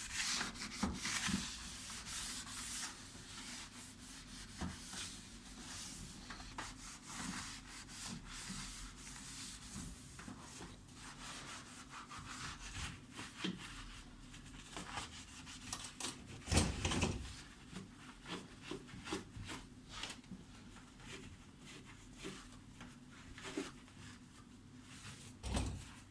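Hand scrubbing and rubbing at dishwasher parts during cleaning, in irregular strokes with small knocks, and one louder knock about two-thirds of the way through.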